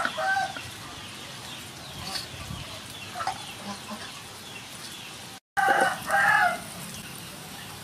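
A rooster crowing once, loud, about three-quarters of the way in, after a quiet stretch with a few faint knocks.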